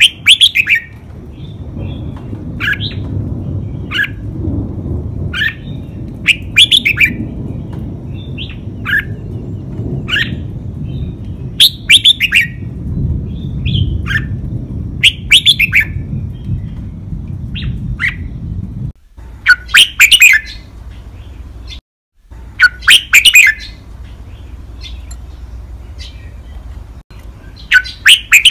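Caged red-whiskered bulbul singing its five-syllable song, loud clear phrases repeated every one to three seconds, over a low background rumble.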